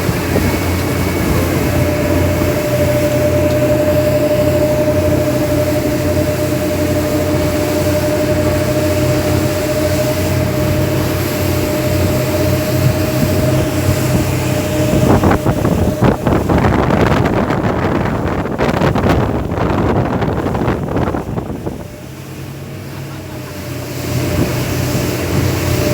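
Speedboat engine running steadily at speed with a held whine. Past the middle a loud rushing noise covers the engine for several seconds, then dies down and the engine's whine comes back.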